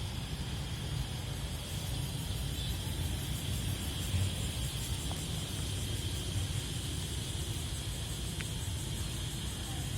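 Steady street ambience: a low, continuous rumble of traffic with a faint high hiss and a few small clicks.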